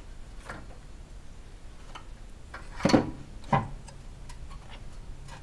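Scattered clicks and knocks as the A/C compressor is twisted and worked out between hoses and a bracket in the engine bay, with two louder knocks about half a second apart near the middle.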